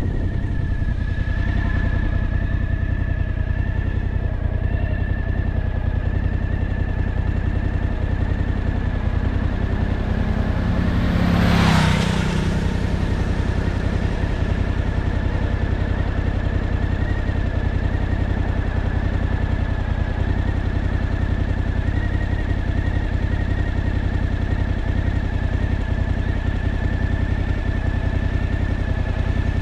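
An engine running steadily at an even speed, with a constant high whine over it; about twelve seconds in, a louder rush swells and fades.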